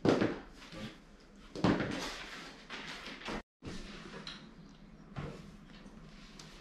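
A few dull thuds and knocks, the loudest right at the start and others about two and five seconds in, from people stepping on and handling a new home treadmill.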